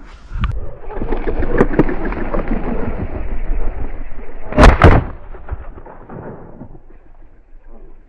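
Two shotgun shots in quick succession, about a third of a second apart, some four and a half seconds in, fired at partridges flushed from a dog's point. Before them there are a few seconds of rustling noise.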